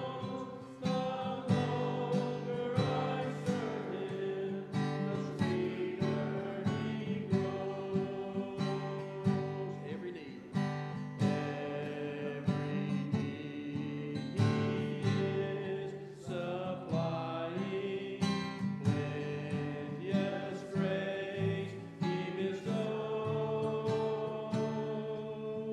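Instrumental hymn music from the church's accompanist, with chords struck on a steady, even beat.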